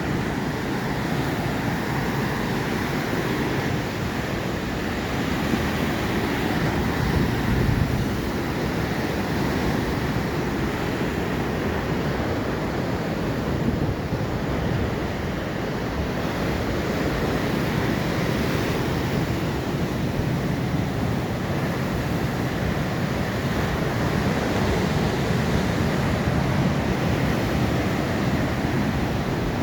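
Atlantic Ocean surf: waves breaking and washing in a steady, unbroken rush, heaviest in the low rumble.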